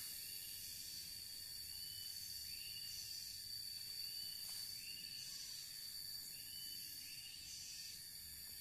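Outdoor insect chorus: a steady high-pitched drone, with a short chirping call repeating a little more than once a second.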